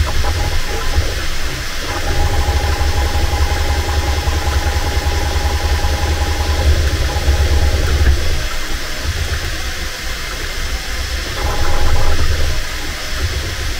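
Bambu Lab 3D printer running a print: a steady whir and low hum, with a thin high whine that comes in about two seconds in, stops around eight seconds and returns briefly near the end.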